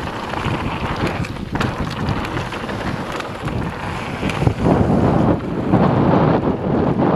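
Wind rushing over the camera's microphone as an e-mountain bike rides fast down a dirt trail, with occasional knocks and rattles from the bike. The rush gets louder a little past halfway.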